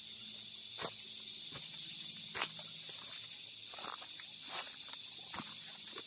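Footsteps on dry leaf litter, a few sharp crunches, over a steady high-pitched drone of forest insects.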